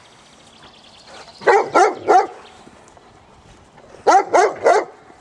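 Gordon Setter barking: two quick runs of three barks each, about a second and a half in and again near the end.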